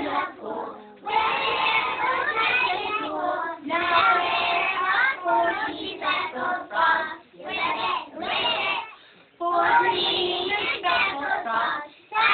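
A group of young children singing a song together in unison, in phrases broken by short pauses.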